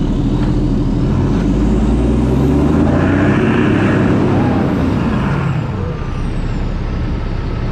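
Diesel truck engine revving hard under load, rising in pitch for a couple of seconds and then easing back off, as it strains to pull a loaded semi truck stuck on wet ground, which does not budge.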